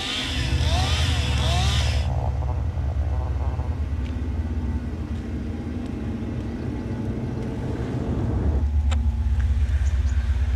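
An engine running with a low, steady rumble, like heavy machinery working. High chirping calls sound over it in the first two seconds.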